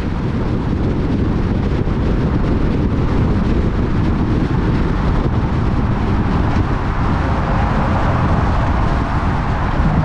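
Steady road and wind noise of a car driving across a bridge deck: a low tyre rumble with wind rushing over the microphone, fading up over the first second or two.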